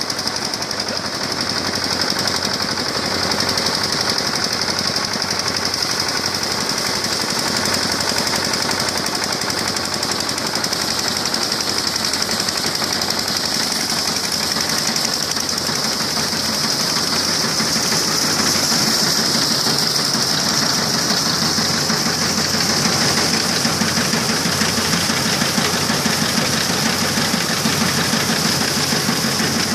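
Multicrop thresher driven by a 5 HP diesel engine, running steadily with a rapid knocking beat and a steady high hiss over it as crop is fed through.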